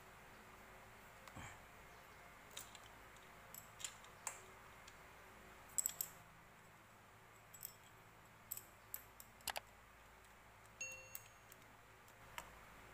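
Faint metallic clicks and clinks as a small chain and sprocket are handled and fitted on the engine of a Yamaha Jupiter Z motorcycle, loudest in a quick cluster about six seconds in. A short metallic ring sounds about eleven seconds in.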